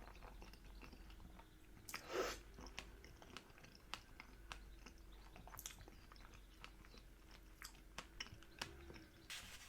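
Close-miked mouth sounds of someone chewing pancake: faint wet clicks and smacks, with a louder soft burst about two seconds in and another near the end.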